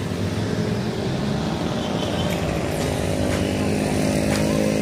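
Motorcycle engine running under way, its pitch rising a little about halfway through as it speeds up.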